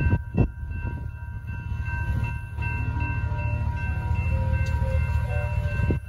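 Railroad crossing signal bells ringing steadily as the crossing gates rise after the train has cleared, over a continuous low rumble. Two sharp knocks come near the start.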